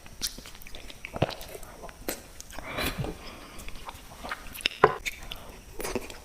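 Close-miked eating of sweets: a person biting and chewing, an irregular run of sharp crunching clicks and mouth sounds.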